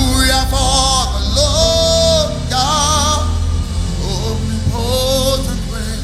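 Gospel worship music: a voice sings long held phrases that waver in pitch, over sustained backing chords and bass.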